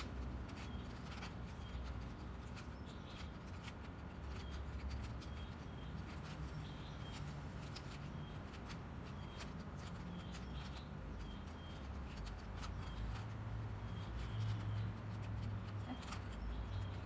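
Plastic 3x3 Rubik's cube being scrambled by hand, its layers clicking in quick, irregular twists.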